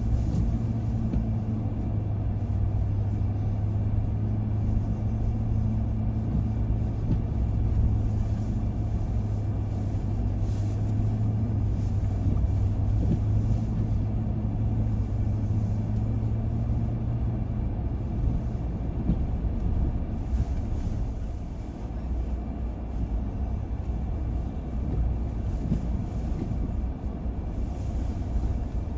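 A car driving along a road: steady engine hum over tyre and road noise. The engine's tone drops lower about two-thirds of the way through.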